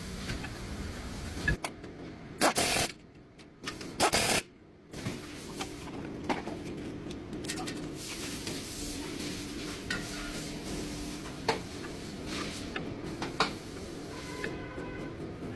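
Brake-job workshop sounds: scattered metal clicks and knocks of tools and parts, with two short loud hissing bursts about two and a half and four seconds in.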